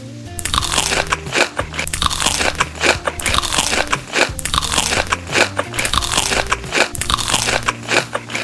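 A person biting and chewing crunchy food close to the microphone: a dense, continuous run of loud crunches starting about half a second in, over soft background music.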